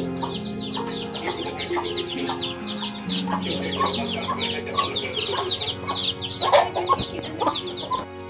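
Chickens peeping in a fast run of short, high, falling notes, about five a second, with a few lower clucking calls through the middle, over background music with held notes that step in pitch. It all drops away abruptly at the very end.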